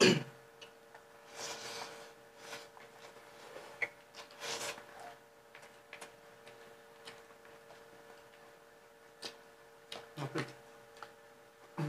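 Eating sounds at the table: scattered wet mouth smacks, chewing and short slurps, over a steady hum.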